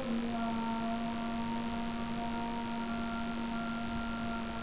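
A steady hum held at one pitch with several overtones, over a constant background hiss.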